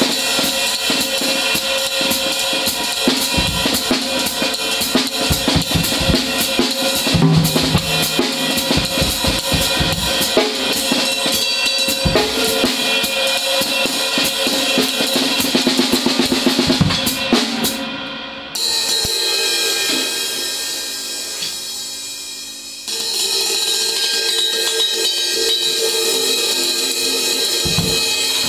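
Drum kit played with sticks, with the riveted K Zildjian crash/ride among the cymbals: busy strokes on drums and cymbals, then about eighteen seconds in a cymbal crash is left to ring and fade, and a second crash rings out about four seconds later.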